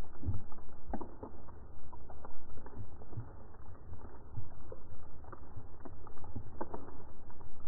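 Underwater sound picked up by a camera in its housing: a muffled low rumble of moving water with scattered clicks and knocks.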